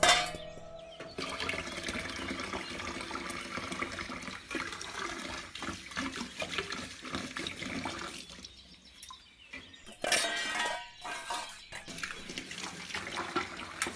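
Water running from a kitchen tap into a stainless steel sink while dishes are washed by hand, with light clinks of metal bowls. The flow quietens for a couple of seconds and surges again about ten seconds in; a sharp knock comes right at the start.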